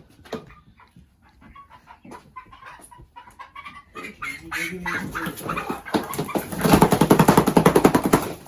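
Four-week-old meat chickens calling with short scattered chirps. About two seconds before the end, a loud, fast rattle of many short strokes takes over for nearly two seconds.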